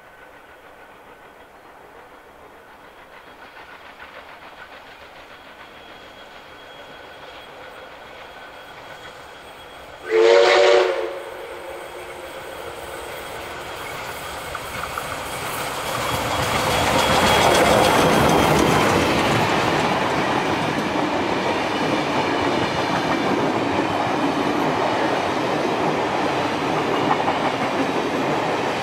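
Baldwin-built 59 class steam locomotive 5917 approaching, its rumble growing louder, with one short whistle blast about ten seconds in. It then passes close by at its loudest, and its passenger carriages roll past with a steady clatter of wheels on the rails.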